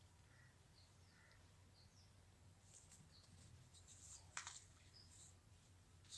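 Near silence, with faint short high chirps here and there and a soft click about four and a half seconds in.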